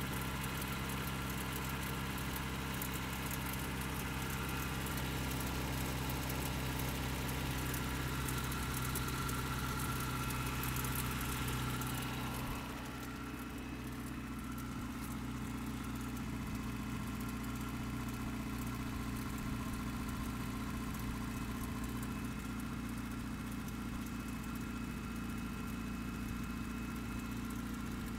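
Toyota 22RE 2.4-litre four-cylinder engine idling steadily, with a knock that the owner suspects is a worn timing chain or rod knock. About halfway through the idle settles slightly lower and quieter.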